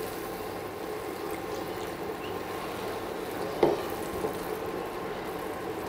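Onion-tomato masala gravy sizzling and bubbling in a pan, just thinned with a little water after frying in butter until the oil separated. One brief louder sound a little past halfway.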